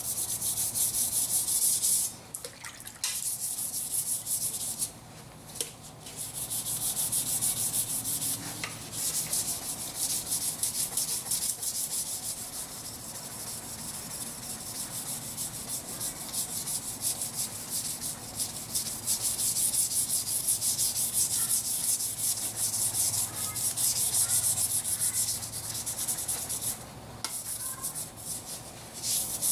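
A sanding block rubbed quickly back and forth along the carbon-steel blade of a 1950s Sabatier chef's knife, scouring the rust and tarnish off the old steel. The gritty strokes stop briefly a few times, about two, five and twenty-seven seconds in.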